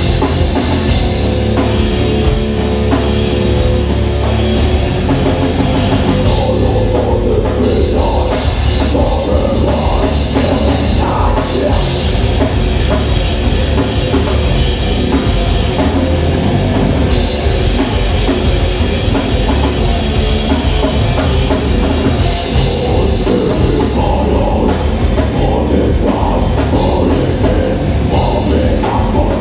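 Live heavy metal band playing: distorted electric guitars, bass guitar and a drum kit, loud and continuous.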